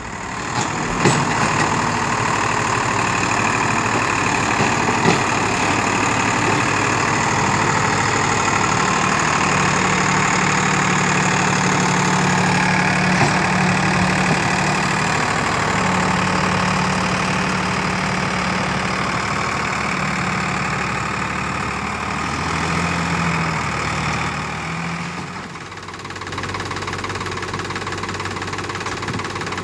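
Sonalika DI 745 III tractor's three-cylinder diesel engine running hard and steady, pulling a fully loaded trolley stuck in mud. About 25 seconds in the engine drops back and carries on at a lower, quieter run.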